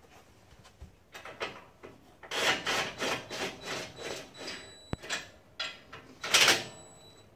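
Irregular scraping and rubbing as the steel plow mount is shifted and adjusted by hand, with a sharp click about five seconds in and the loudest scrape near the end.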